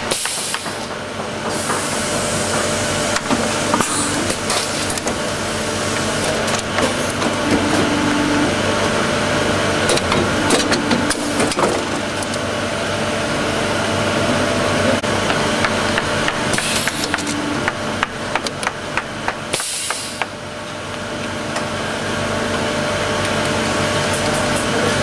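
Ormac pneumatic shoe-lasting machine working a shoe's toe over the last: a steady machine hum full of clicks and clatters from its pincers, with short sharp air hisses near the start and twice about two-thirds of the way through.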